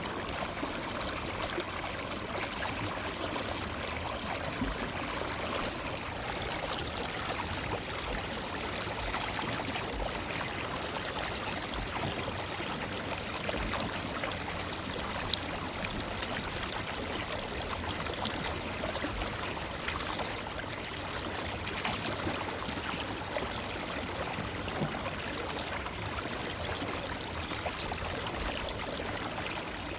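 River water flowing over rocks in a steady, even rush, with a single faint click about halfway through.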